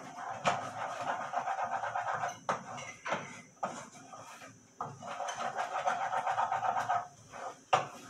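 Wooden spatula scraping and tapping around a frying pan as scrambled eggs are stirred. It comes as two stretches of quick scraping strokes, a second or two each, with a few sharp knocks between them and one more near the end.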